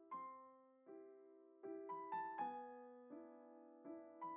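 Quiet background music: a piano playing soft chords and single notes, each struck and left to fade, a new one about every half to three quarters of a second.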